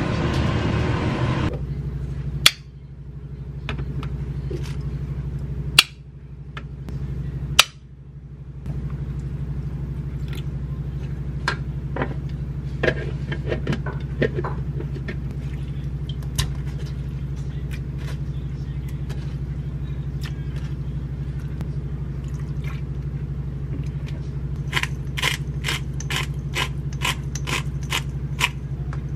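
Kitchen food prep over a steady low electrical hum: three sharp clicks and knocks early on as eggs go into an electric egg steamer and its plastic lid is fitted, then scattered small taps and clinks, with a run of quick taps near the end as a pepper shaker is shaken over cubed meat in a glass bowl. It opens with a second and a half of laundromat washing-machine drone.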